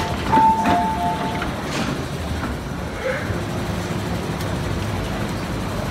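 Hong Kong MTR M-Train door chime, alternating a higher and a lower tone and repeating, as the passenger doors slide open with a few knocks. The chime stops about a second and a half in, leaving a steady hum of the stopped train and station.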